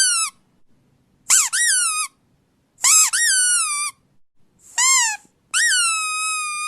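A series of high-pitched squeaks, the kind played to make a dog react. One squeak is just ending at the start, then four more follow about a second apart. Each rises and then falls in pitch, and the last is the longest, holding its pitch before dropping away.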